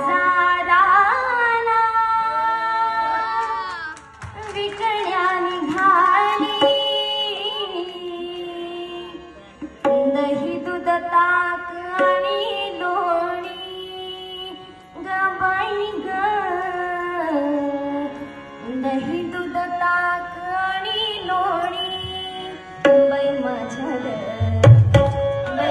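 A woman singing a slow Indian melody with long, ornamented held notes over a steady drone, with tabla strikes coming in near the end.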